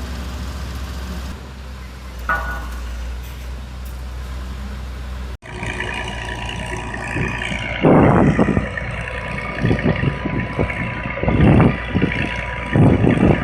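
Heavy construction machine's diesel engine running with a steady low hum. About five seconds in the sound cuts to another machine, with a steady high tone and several loud, rough surges of engine and working noise.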